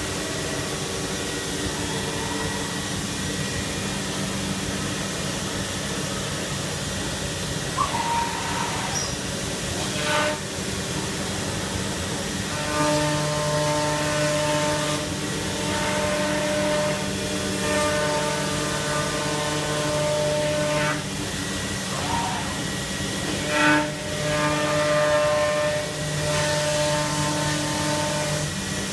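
CNC router cutting plywood cabinet parts: a steady hiss with several held machine tones. From about halfway, a stronger set of tones comes and goes in stretches of two to three seconds as the bit moves through the cuts. A few short sharp sounds stand out, the loudest near the end.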